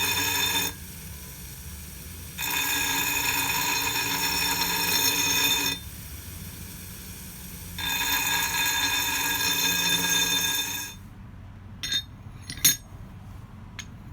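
A power tool working on steel in three bursts of a few seconds each: a steady high-pitched whine with many overtones that drops away between bursts. Near the end come a couple of sharp metallic clinks.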